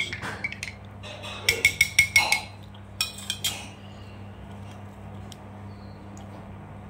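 Cutlery clinking against dishes: a quick run of about half a dozen ringing clinks between one and a half and two and a half seconds in, a few more around three seconds, then only a steady low hum.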